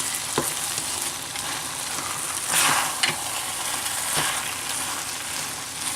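Chicken, green beans and ramen noodles sizzling steadily in a hot wok on sear, with a few sharp clicks of a utensil against the wok as the food is stirred and cut up; the sizzle swells briefly about two and a half seconds in.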